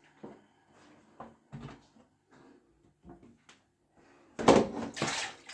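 Plastic basin being handled close to the microphone: a few light knocks and bumps, then a louder stretch of rubbing and clattering about four seconds in.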